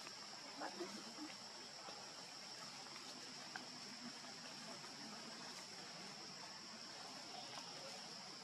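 Steady high-pitched drone of insects in the forest, with a few faint short ticks in the first second and one more about three and a half seconds in.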